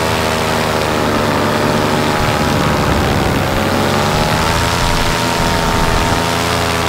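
Parajet Maverick paramotor's Moster 185 two-stroke engine and propeller running steadily in flight; the engine note dips about three seconds in, then climbs to a higher pitch as power is added.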